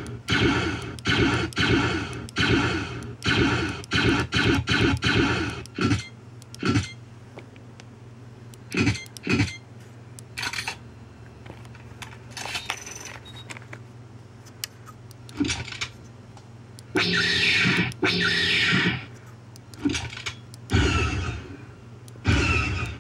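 Star Wars E-11 blaster sound effects played from a prototype Arduino and MP3-module sound board as its trigger buttons are pressed. A rapid string of shots comes about twice a second for the first six seconds, then scattered single shots, and around seventeen seconds a longer effect with falling tones. A steady low electrical hum runs underneath.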